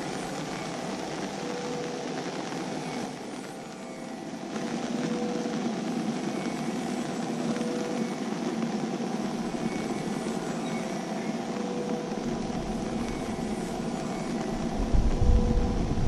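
Steady outdoor background noise, with a faint short tone recurring every two to three seconds. A low rumble comes in near the end.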